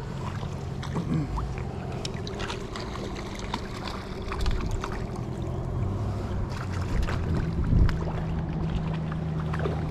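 Shallow stream running steadily over a riffle, with water sloshing close to the microphone and scattered small clicks and knocks; a dull thump about eight seconds in.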